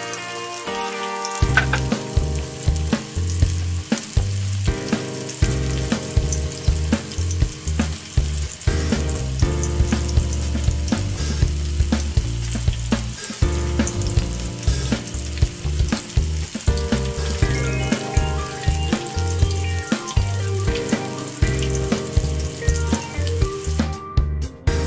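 Coated chicken pieces deep-frying in hot oil in a wok, a steady sizzle, under background music with a steady beat.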